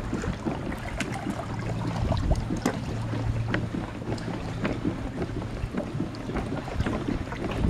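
Kayak paddle strokes: the blade dipping and pulling through the water with scattered drips and small splashes, and water sloshing at the hull. Some wind noise on the microphone runs underneath.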